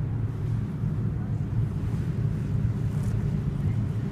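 Steady low rumble of motor vehicles, with no distinct passes or horn and siren sounds standing out.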